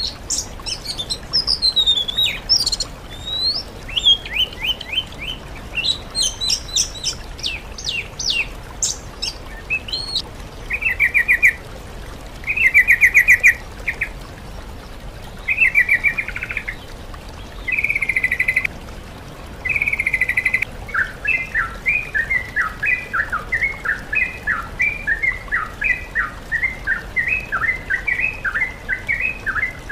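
Songbird song from a masteran training track that blends yellow-vented bulbul (trucukan) with oriental magpie-robin (kacer) and greater green leafbird (cucak ijo) phrases. Quick, high, falling whistles for about the first third. Then short rattling trills come in separate bouts, and from about two-thirds in a fast run of repeated chipping notes.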